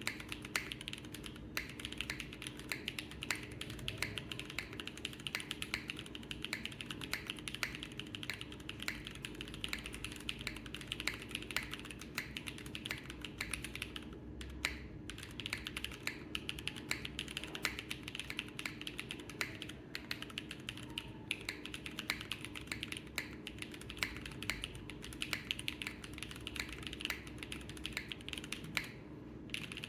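Continuous typing on a KohaKorn custom mechanical keyboard built with an aluminum plate, no foam, Gateron Pure Sky switches under Cherry vintage black top housings, and GMK ASCII ABS keycaps: a fast run of key clacks with a brief pause about fourteen seconds in.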